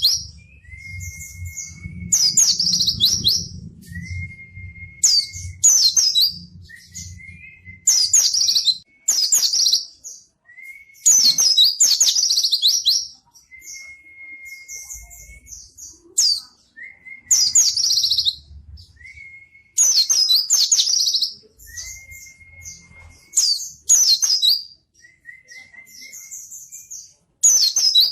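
Pleci (white-eye) singing in phrases repeated about every two seconds, each a thin drawn-out whistle followed by a loud, fast, high twittering burst.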